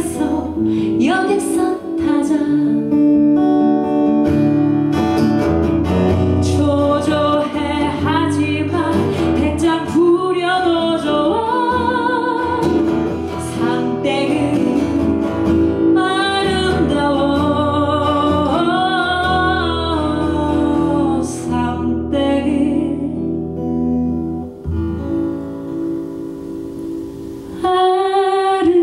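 A woman singing a Korean musical-theatre song with vibrato, accompanying herself on a strummed acoustic guitar. Near the end she holds a long final note and the music stops.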